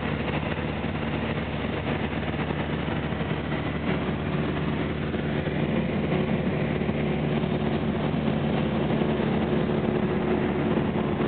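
Light aircraft's piston engine and propeller droning steadily in flight, heard inside the cabin, with a steady hum of even tones under a loud rushing noise; it grows a little louder about halfway through.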